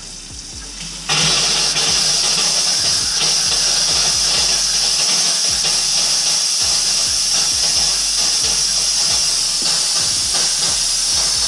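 Compressed air blowing out through an open kitchen faucet during winterization: water running gives way about a second in to a loud, steady hiss of air spitting water mist from the spout as the hot and cold lines are purged, then it cuts off suddenly as the faucet is shut.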